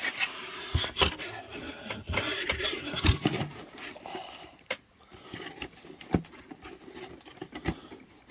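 Cardboard mystery box being opened and its contents handled: cardboard scraping and rustling, with several sharp knocks along the way.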